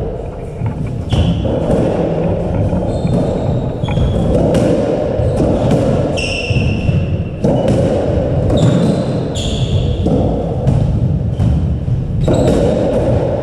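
A squash-court rally: the ball struck by rackets again and again and smacking off the court walls, with short high squeaks of shoes on the wooden floor.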